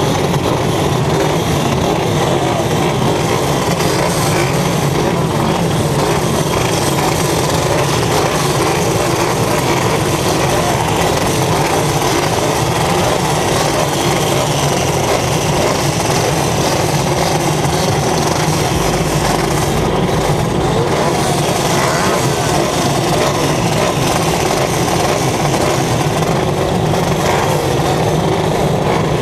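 Engine of a racing vehicle running steadily under way, heard from an onboard camera together with heavy wind and road noise.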